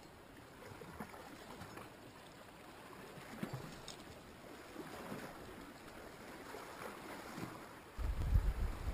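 Faint sea lapping against the rocks. Near the end a low rumble of wind on the microphone starts suddenly and is the loudest sound.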